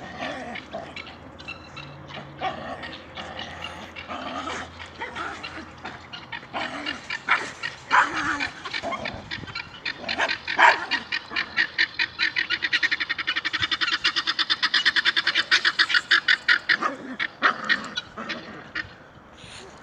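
Dog barking and yapping in a series of sharp calls, with a long run of fast, rapid-fire pulses in the middle.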